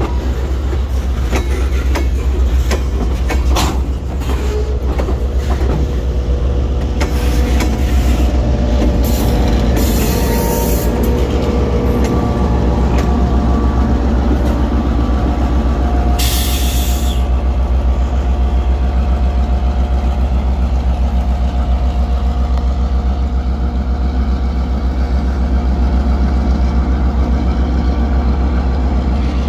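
Loaded tank cars of a freight train rolling past with rhythmic wheel clicks over the rail joints. Then a diesel locomotive's engine passes, and later an EMD GP9-type diesel locomotive engine runs steadily as it approaches slowly, with a deep rumble underneath throughout.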